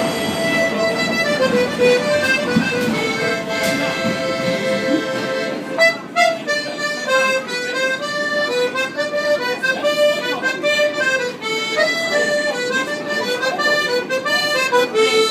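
Piano accordion playing a melody over sustained reedy notes, the tune moving step by step in held notes.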